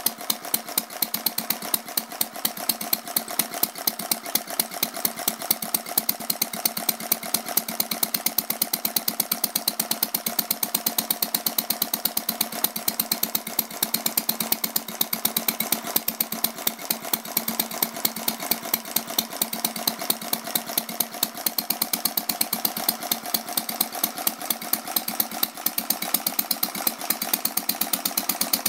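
Centaur model single-cylinder horizontal engine running steadily, each firing stroke a sharp crack at a fast, even beat.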